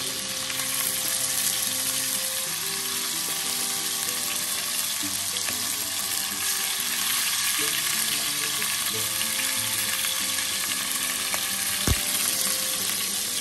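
Beef chunks frying in hot olive oil in a cast-iron Dutch oven: a steady sizzle with crackle. One sharp click near the end as tongs knock against the pot.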